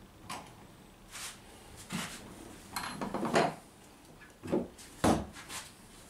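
Irregular wooden knocks and clatter of hand tools being handled against a wooden rail on a fibreglass boat hull. One knock, about five seconds in, is louder and deeper than the rest.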